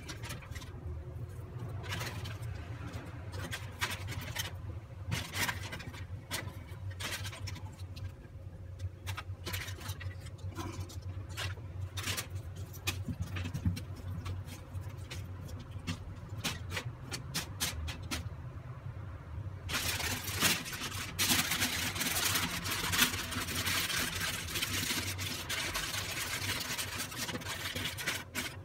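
Aluminium foil crinkling as it is handled: scattered crackles at first, then from about two-thirds of the way in a continuous crackle as the foil is folded and rolled into a parcel.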